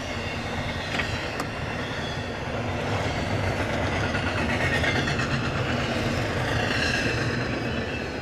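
Freight train rolling past on the rails, a steady rumble of railcars and wheels with faint metallic wheel squeal and a couple of clicks about a second in. It swells in the middle and eases off near the end.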